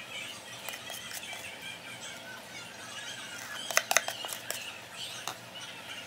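A metal spoon scooping thick whipped Milo foam onto a glass mug of iced milk, with a quick run of sharp clinks about two-thirds of the way through as it knocks against the glass and bowl. Faint high wavering chirps go on underneath.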